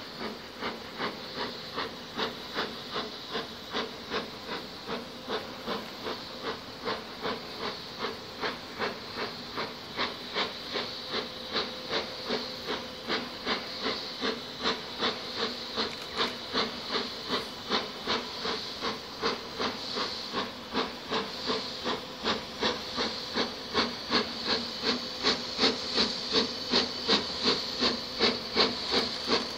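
BR Standard Class 4MT steam locomotive No 75078 working hard as it approaches, its exhaust beating steadily a little over twice a second with steam hiss, growing louder as it comes closer.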